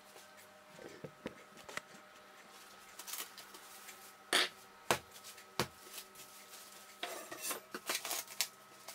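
Cling film being pulled off its roll and wrapped around a block of cookie dough on a countertop: light rustling and crinkling of the plastic, thicker near the end, with three sharp knocks on the counter about four to six seconds in.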